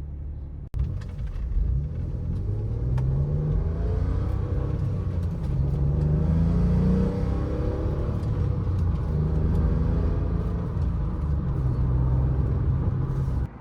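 Ford SVT Contour's 2.5-litre V6 engine accelerating: its pitch climbs for a few seconds, drops back about halfway through as a gear changes, then holds steadier.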